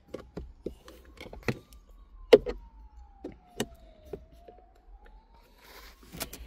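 Irregular clicks and knocks of a metal prying tool working at the plastic trim and retaining tabs of a car's USB hub, the loudest about two and a half seconds in. Behind them a faint siren wails slowly up and down.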